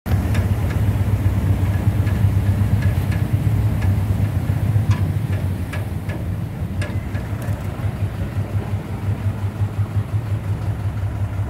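Small engine of a motorized van rickshaw running steadily under way, a low pulsing hum, with a few sharp knocks in the first several seconds.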